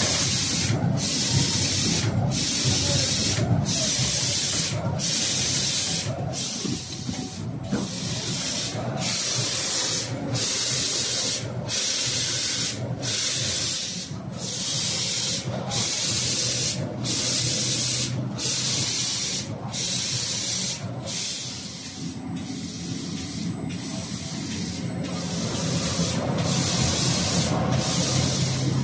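Automatic UV screen printer for glass jars running: a steady high hiss broken by a brief gap about once a second, in time with the machine's cycle, over a lower machine hum.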